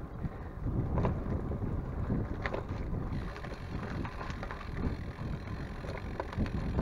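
Wind buffeting the microphone on a moving bicycle, a gusty low rumble, with a few light clicks about one and two and a half seconds in.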